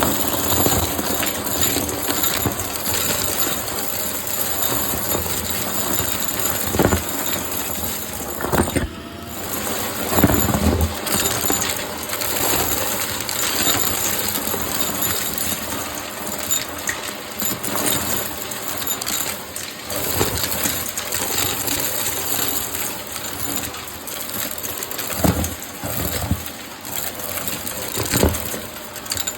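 Shark vacuum cleaner running with a steady high whine while crunchy debris rattles and clicks up through it, with a few louder knocks. The high hiss dips briefly about nine seconds in.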